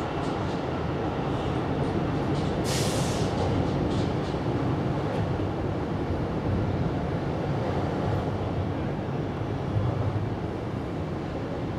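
A steady low rumble of background noise, with a brief hiss about three seconds in.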